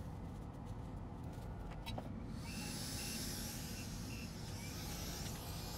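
Faint clicks, then a steady hiss that starts about two seconds in, with four short high beeps over it in the middle.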